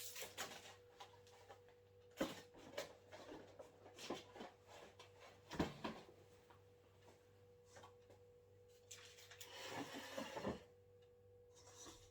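Faint handling of paper fast-food packaging: scattered light clicks and taps, with a longer rustle about ten seconds in, over a faint steady hum.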